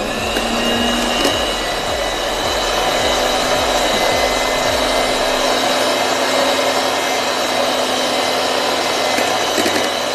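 Electric hand mixer running at a steady speed, its twin beaters whipping cream, with an even motor whine. The cream is being beaten toward stiff peaks.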